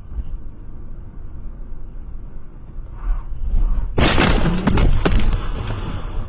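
Steady low rumble of a car driving, heard through a dashcam. About four seconds in comes a sudden loud crash, several bangs within about a second as the car collides, then a rough noise with a few knocks.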